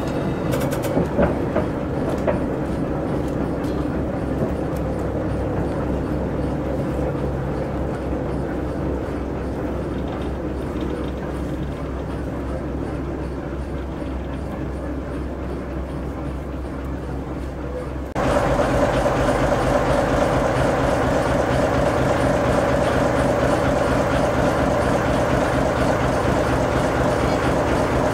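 Small Ruston diesel shunter's engine running steadily under load while it slowly hauls a steam tank locomotive round a tight curve. About eighteen seconds in, the engine suddenly sounds much closer and louder, with a strong steady hum.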